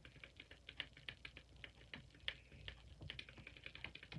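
Fidget cube's rolling ball pressed in over and over, giving a run of quiet plastic clicks, several a second.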